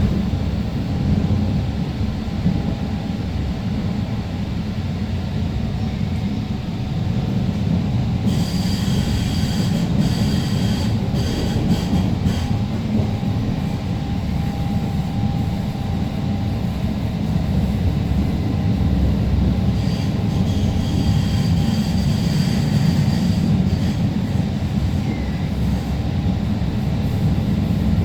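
Alstom Citadis Spirit light-rail train running between stations: a steady low rumble of wheels and motors. A high wheel squeal comes in twice, about eight seconds in for several seconds and again about twenty seconds in.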